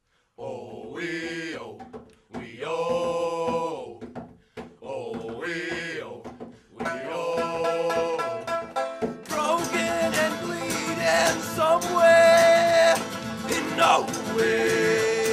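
Horror-country band singing as a group of men's voices, unaccompanied in short phrases at first. About seven seconds in, plucked acoustic guitar and banjo come in, and from about nine seconds the full string band of banjo, guitar and upright bass plays under the singing.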